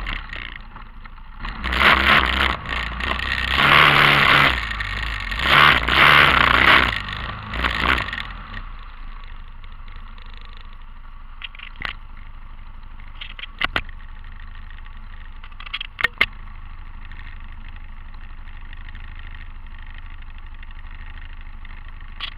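TGB 550 quad bike's single-cylinder engine revved hard in several bursts over the first eight seconds or so, then settling to a steady idle, with a few sharp knocks partway through.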